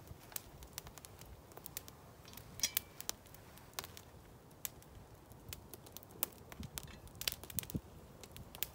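Wood campfire crackling, with sharp snaps and pops coming at irregular intervals.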